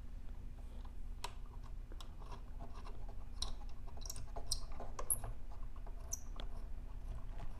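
Scattered, irregular light clicks and taps as small hex screws are handled, set in place and driven back into the pulley assembly's cover, over a faint steady hum.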